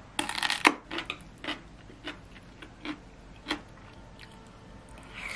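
Eating sounds: a metal fork scraping and clinking on a ceramic bowl of curry rice, then chewing with short sharp clicks roughly every half second.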